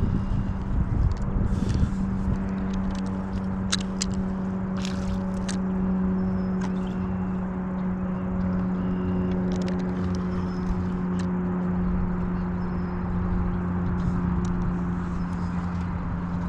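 A small motor running at a steady speed, giving a constant hum. Scattered sharp clicks and scrapes sound over it, typical of handling fishing gear in a boat.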